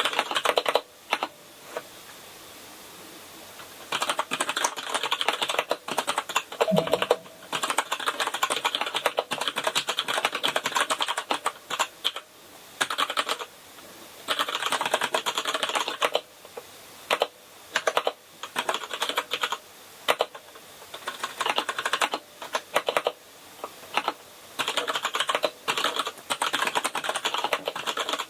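Typing on a Kinesis Advantage contoured keyboard with Cherry MX Brown tactile switches: fast runs of key clicks in bursts of several seconds, broken by short pauses.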